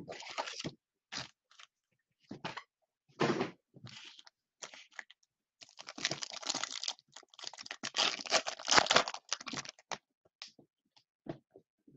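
Foil wrapper of a Topps Finest baseball card pack being torn open and crinkled by hand, with the cards slid out. An irregular run of dry crackling and rustling, busiest from about six to ten seconds in.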